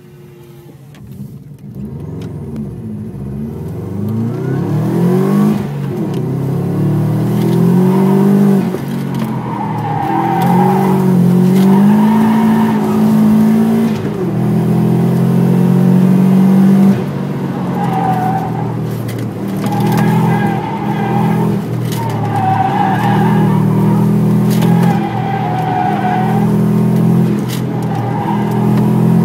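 Subaru Impreza WRX's turbocharged flat-four engine heard from inside the cabin, pulling away and accelerating, its pitch climbing and dropping back with gear changes and throttle lifts. In the second half come repeated short tyre squeals as the car turns through the cones.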